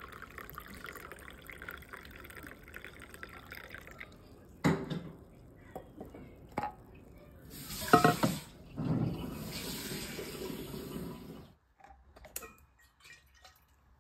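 Hot drink pouring in a steady stream from a vacuum flask into a ceramic mug for about four seconds. Then comes a sharp knock and a few clicks, followed by a louder rushing noise with a hard hit in the middle. The rushing cuts off suddenly after about eleven and a half seconds.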